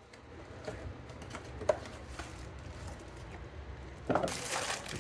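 Small parts being handled: a few light clicks and one sharper knock about a second and a half in, then a short scraping rustle near the end.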